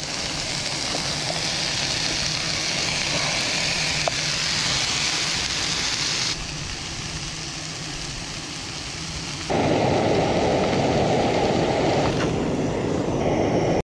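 Chicken breast and chanterelle mushrooms frying in a pan on a camping gas stove: a steady sizzle. The sound changes abruptly a couple of times, and a louder, deeper rushing noise takes over for the last few seconds.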